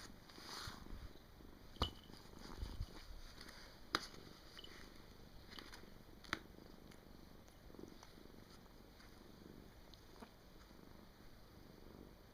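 A domestic cat snoring softly in deep sleep. Three sharp clicks come about two seconds apart in the first half.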